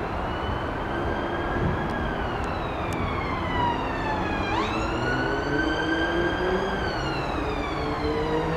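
Emergency vehicle siren wailing. Its pitch falls slowly, sweeps quickly back up about four and a half seconds in, then slowly rises and falls again, over a steady background rumble.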